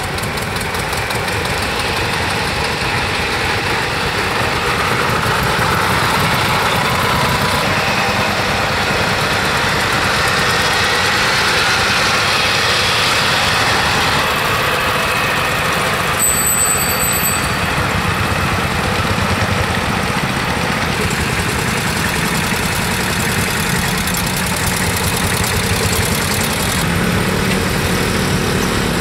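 Several tractors' diesel engines running at low speed as the tractors drive past one after another on a dirt road.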